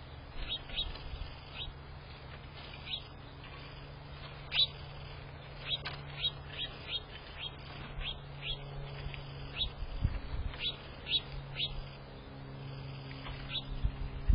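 Small birds chirping, many short quick calls that each drop in pitch, scattered irregularly, over a low steady hum.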